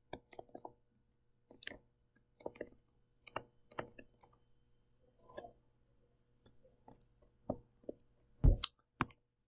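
Scattered light clicks and taps of a stylus on a tablet while handwriting, with a sharper knock about eight and a half seconds in, over a faint steady hum.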